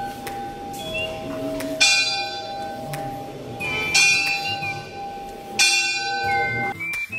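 A hanging brass temple bell struck three times, about two seconds apart, each strike ringing on with a clear, sustained tone; a second, lower-pitched bell rings more faintly between the first strikes.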